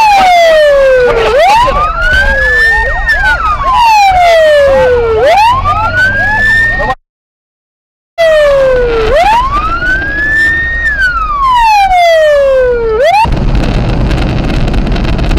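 Police car siren wailing, its pitch sweeping slowly up and down about every four seconds, heard from inside the patrol car. All sound drops out for about a second midway, and the siren stops about two seconds before the end, leaving engine and road rumble.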